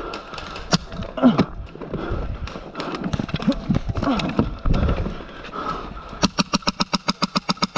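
Scattered clicks and rustling, then, with about a second and a half to go, a rapid even run of sharp clicks at about ten a second: an airsoft gun firing on full auto.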